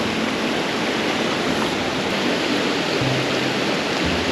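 Shallow river rushing over rocks in a riffle: a steady, even rush of moving water.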